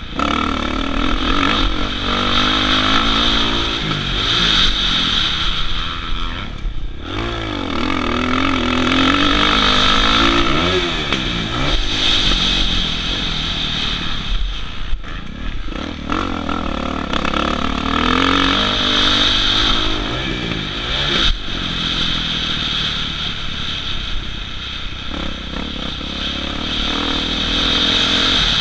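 Kawasaki KX450 single-cylinder four-stroke motocross bike ridden at race pace, its engine revving up and falling back again and again through the gears. The engine sound drops out briefly three times.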